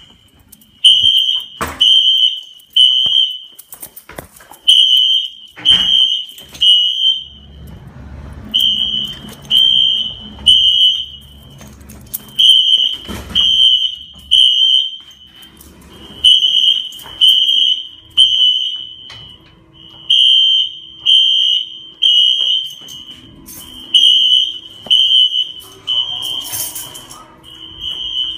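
Wheelock fire alarm horns sounding the temporal-3 evacuation pattern: three short, high-pitched beeps, a pause, then three more, over and over, as the alarm system is tested. A few sharp thumps sound between the beeps.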